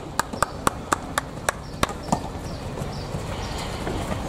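Rhythmic hand clapping, about four sharp claps a second, urging the players on; it stops about two seconds in, leaving a faint steady background.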